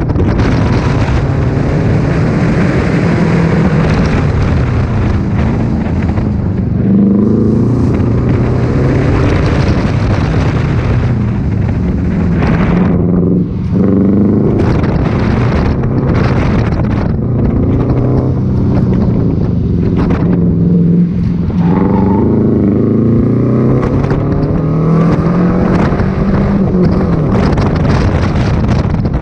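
Subaru Impreza 2.5 RS's 2.5-litre flat-four engine being driven hard through an autocross course. It accelerates and eases off again and again, its pitch rising and falling with throttle and gear changes, over wind and road noise.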